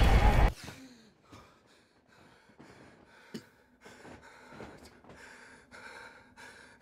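A loud, harsh noise cuts off abruptly about half a second in. Then a young man breathes hard in short, faint gasps, startled awake in bed.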